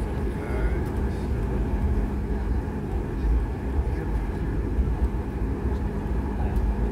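Airliner cabin noise as the plane moves on the ground: a steady low rumble of engines and rolling wheels, with a constant hum.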